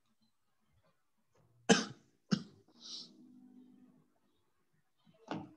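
A person coughing twice in quick succession, followed by a short throat-clearing sound, then one more cough near the end.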